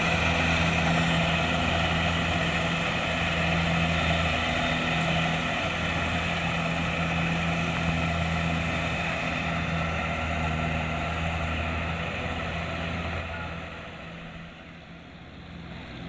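Kubota DC-70 Plus combine harvester running steadily, its engine hum joined by a higher steady whine from the machinery. The sound falls away sharply about fourteen seconds in.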